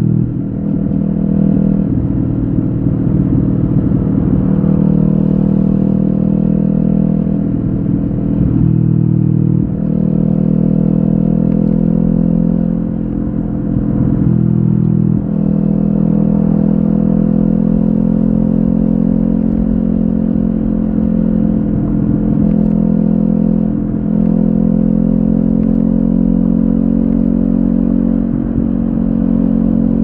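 Kawasaki Ninja 400's parallel-twin engine running under way through an Akrapovic carbon slip-on exhaust with its db killer removed. The note holds steady, with brief dips and shifts in pitch a few times.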